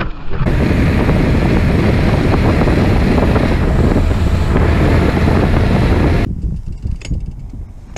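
Wind buffeting the microphone of a handlebar camera on a mountain bike speeding down a paved road: a loud, steady roar. It cuts off abruptly about six seconds in, leaving a much quieter background with a few faint clicks.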